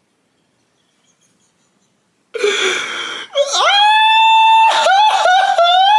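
A person's long, high-pitched scream: near silence, then about two seconds in a sudden noisy burst, then a held shriek that breaks into wavering, laugh-like cries near the end.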